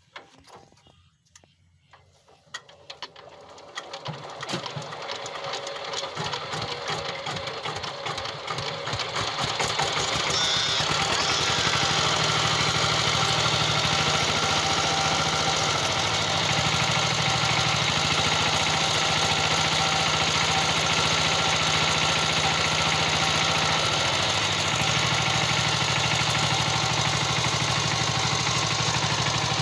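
Single-cylinder diesel engine of a two-wheel power tiller starting. It is uneven at first and builds up over several seconds to a steady, loud run, pouring out heavy white smoke as it starts.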